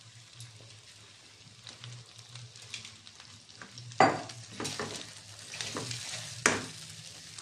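Marinated Gobindobhog rice being tipped into a hot, oiled kadai, frying with a light sizzle, then stirred with a silicone spatula: scraping strokes against the pan from about four seconds in, the first the loudest. This is the rice being fried in the oil before the water goes in.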